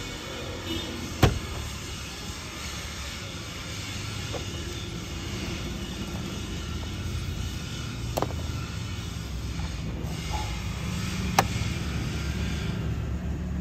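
Steady low vehicle rumble, with a sharp click about a second in and two more later on as plastic steering-column trim is handled.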